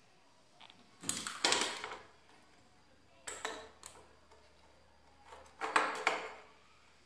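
Handling noise: a circuit board salvaged from a TV and its wires being moved about on the bench, in three short bursts of clatter and rustle, about a second, three and a half and six seconds in.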